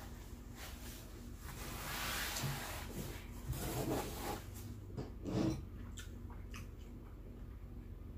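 Soft close-up eating and drinking sounds from a mukbang meal of soup and a grilled cheese sandwich, with a hissy sip or slurp about two seconds in and a few short mouth sounds in the middle.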